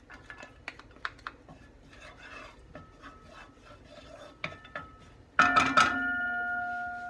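Wooden spoon scraping minced garlic out of a small glass bowl and pushing it around a pot, with soft scrapes and light clicks. About five seconds in, a few sharp taps of the spoon set off a ringing tone that slowly fades.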